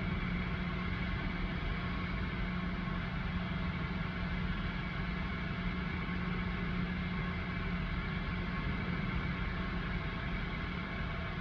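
A steady low mechanical hum with a faint noise haze, unchanging throughout; no siren is sounding.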